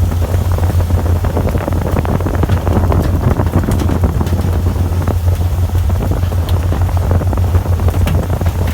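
Fishing boat's engine running with a steady low hum, with wind buffeting the microphone.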